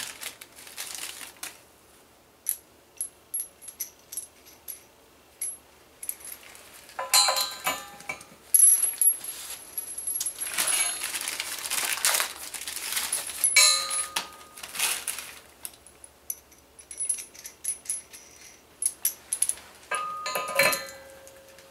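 Steel nuts and washers clinking as they are handled and dropped onto concrete anchor bolts, with many light ticks and a few sharper ringing clinks about a third of the way in, past the middle and near the end.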